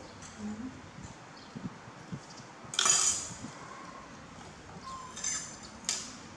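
A ceramic plate and metal spoon clinking and clattering against a tabletop as a monkey handles them: one loud clatter about three seconds in, then a few lighter clinks.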